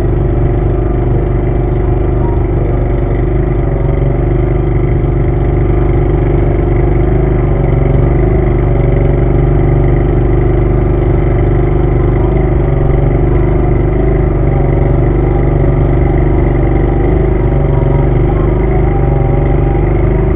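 An engine idling steadily, its pitch wavering slightly, with no revving.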